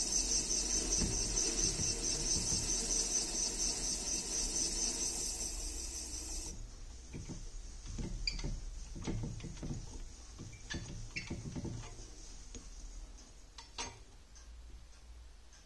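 Rapid, repeated high-pitched squeaking from the wooden handle on the hand-turned flywheel of an antique burin fixe watchmaker's lathe as it spins. The squeaking stops suddenly about six seconds in and gives way to a few soft knocks and sharp clicks.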